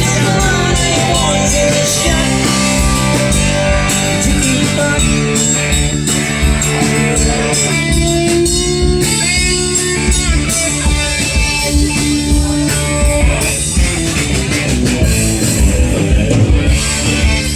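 Live blues-rock music: guitar over a steady drum beat, with some held and sliding notes.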